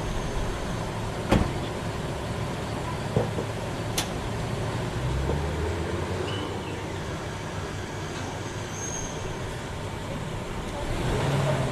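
Steady outdoor street background with a low hum of distant traffic, swelling twice, and two sharp clicks about a second and four seconds in.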